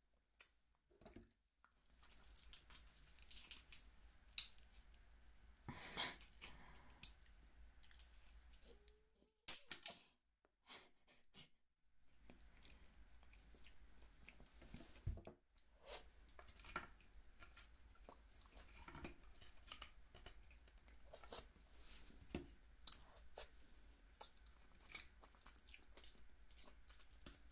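Quiet, close-miked sounds of steamed snow crab being eaten by hand: crab shell crackling and clicking as the meat is picked out of the legs, and the meat being chewed, in scattered irregular bursts.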